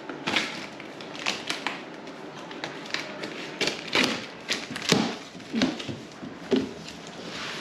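Irregular taps, clicks and knocks of parts and packaging being handled while a benchtop spindle sander is unboxed, about a dozen sharp hits at uneven spacing.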